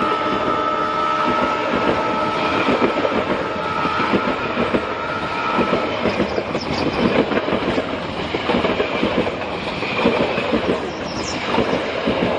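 Metre-gauge train rolling through a curve behind a YDM-4 diesel locomotive, its wheels clattering rhythmically over the rail joints. Steady tones fade out about halfway through, and short high wheel squeals come twice, about six and eleven seconds in.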